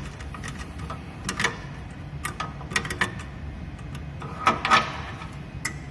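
Irregular light clicks and taps of a screwdriver working the build platform's levelling nuts on a Moai SLA resin printer, a small cluster of them about four and a half seconds in, over a low steady hum.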